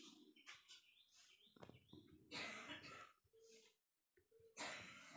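Near silence, broken by a few faint, short breathy noises from a person close to the microphone. The loudest come about two and a half seconds in and near the end.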